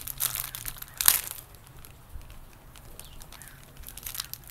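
Thin plastic wrapper crinkling as it is bitten and pulled at by hand, in irregular crackles with the sharpest one about a second in.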